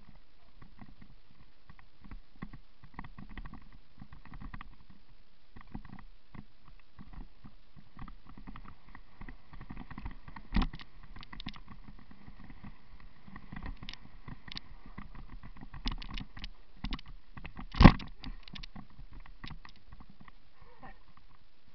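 Mountain bike rattling down a rough dirt trail: a constant chatter of small clicks and knocks as the bike and its tyres go over roots and rocks. There are two sharp, loud knocks, one about ten seconds in and a louder one near eighteen seconds.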